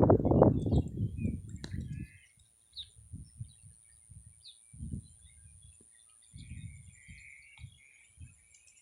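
Birds chirping sporadically outdoors, with low rumbling gusts of wind buffeting the microphone, loudest in the first two seconds and coming in short puffs after that.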